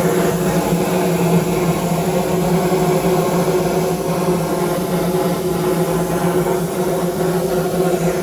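Darjeeling toy train locomotive running steadily, a constant low mechanical hum over a noisy hiss with no puffing rhythm.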